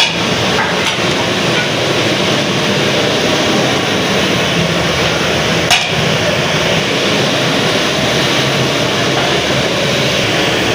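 Busy street-food stall ambience: a steady wash of traffic and street noise with a few sharp knocks, one loud knock about six seconds in.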